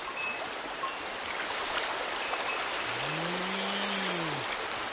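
Stream water running steadily over rocks, with a few short ringing taps in the first three seconds. A low hum rises and falls in pitch about three seconds in.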